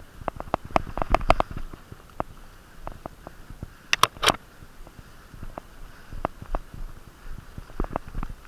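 Irregular knocks, clicks and rustling close to the microphone, with three sharp cracks in quick succession about four seconds in.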